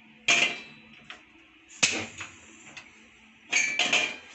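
Metal frying pan knocking and scraping on a gas stove's burner grate as it is set in place: three sharp clanks, the last a short rattle near the end.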